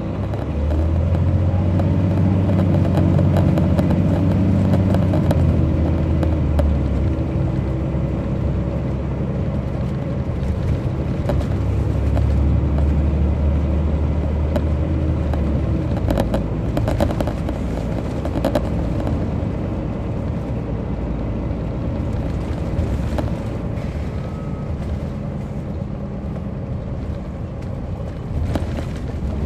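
Caterpillar C13 diesel engine of an MCI D4500CL coach heard from inside the bus while it is under way. The engine drone is strong for the first several seconds and again until about halfway through, then eases off to a lower rumble of road noise with scattered rattles.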